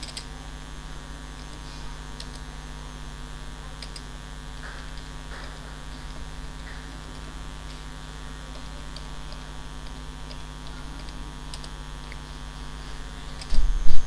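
Steady electrical mains hum with a few faint computer-keyboard key clicks scattered through it, and one loud low thump near the end.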